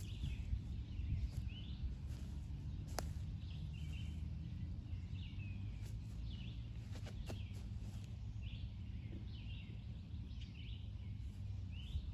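Small birds chirping over and over, short high rising chirps about once a second, over a steady low rumble of wind on the microphone. A few sharp clicks stand out above it.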